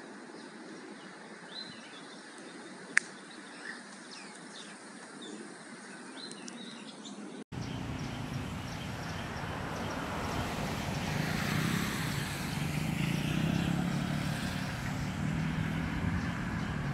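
Outdoor ambience recorded on smartphone microphones: birds chirping over a quiet hiss, with one sharp click about three seconds in. Midway it cuts abruptly to louder street ambience with a low rumble of road traffic.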